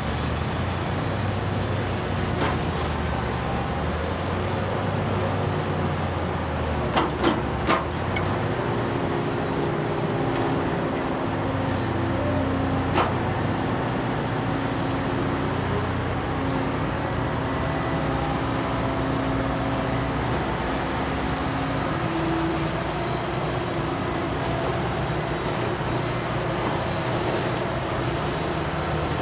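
Heavy diesel construction machinery and tractor engines running steadily, their tones shifting as they work. Three sharp knocks come in quick succession about seven seconds in, and another near thirteen seconds.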